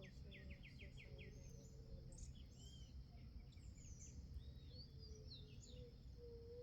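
Songbirds chirping faintly: a quick run of about six chirps at the start, then scattered chirps and short whistled calls over a steady low background hum.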